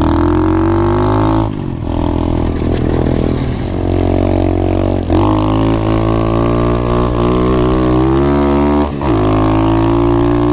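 SSR 125 pit bike's single-cylinder four-stroke engine running under throttle on a trail ride. Its pitch climbs and holds, with brief drops and recoveries about a second and a half, five seconds and nine seconds in, as the revs fall and build again.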